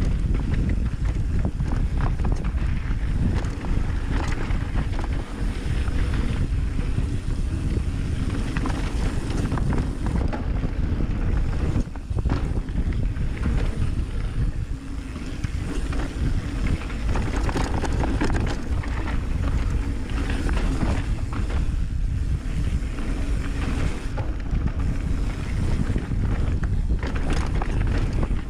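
Mountain bike riding down a trail: wind buffeting the microphone and tyres rumbling over the surface, with frequent short clatters and rattles from the bike.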